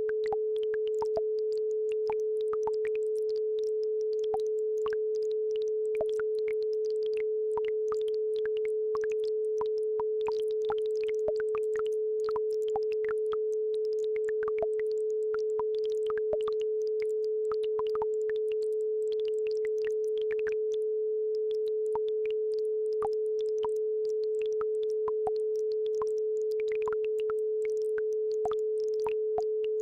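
A steady 432 Hz sine tone held without a break, with the faint bubbling and trickling of a babbling brook behind it.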